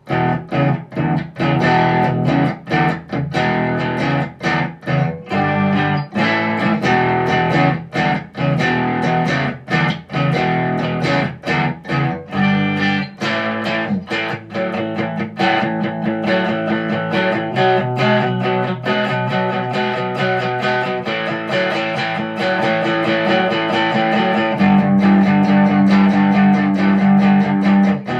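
Squier electric guitar played through an M-VAVE MK-300 multi-effects pedal preset and recorded direct: a continuous passage of quickly picked notes and chords, with the chord changing several times.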